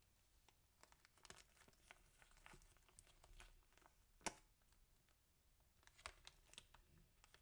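Quiet crinkling and crackling of the clear plastic pouch around a bundt cake as fingers with long gel nails handle it, with scattered small clicks and one sharper click about four seconds in.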